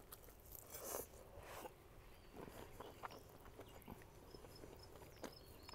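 Faint sounds of someone chewing a bite of steak: a few soft, scattered clicks and smacks from the mouth, the loudest about a second in, over near silence.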